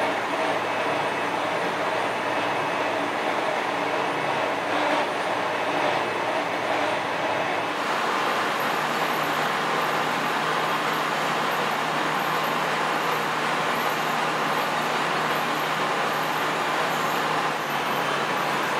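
Steady workshop machinery noise that changes character about eight seconds in, after which a low steady hum runs underneath.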